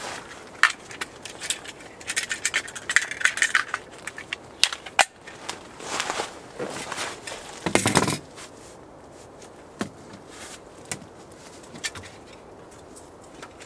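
Camp gear being handled and rummaged through in a kitchen box: a run of small clinks, clicks and rattles of metal and plastic items, with a louder clatter about eight seconds in.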